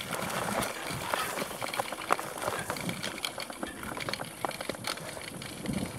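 Mountain bike rolling along a narrow dirt trail: tyre noise on dirt with many small clicks and rattles, and tall grass brushing past.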